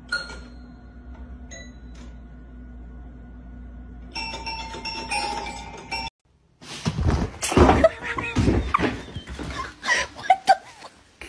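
Toy piano keys pressed by a cat's paw: a single plinked note, a second note about a second and a half later, then several keys held down together. After a short break, a louder run of rough, noisy sounds.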